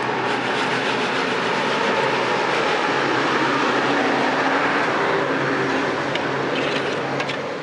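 Roasted chickpeas rattling and rolling over a flat metal tray as it is handled, a dense, steady rattle.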